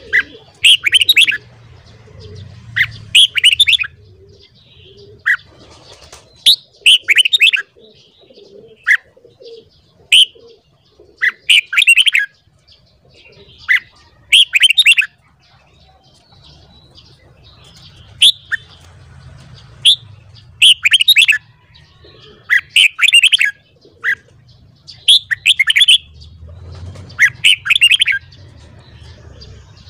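Red-whiskered bulbul singing: loud, short, bright warbled phrases, repeated every one to two seconds.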